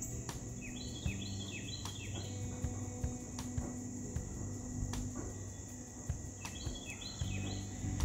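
Crickets trilling, one steady high-pitched note. A bird gives a quick run of four chirps twice, about a second in and again near the end.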